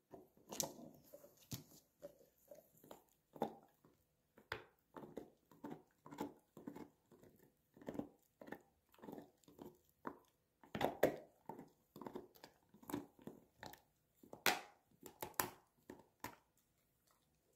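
A large dog gnawing a hard, chicken-flavoured chew-toy bone: irregular short scrapes and crunches of teeth on the bone, one or two a second, with a louder run about eleven seconds in and again near fifteen seconds.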